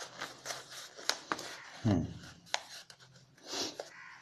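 A pen writing: light scratching with a few sharp taps and clicks.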